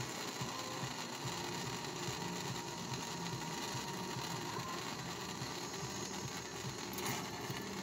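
Handheld gas torch flame burning steadily against a coin on a metal plate: a continuous rushing hiss with a fast, fluttering low rumble.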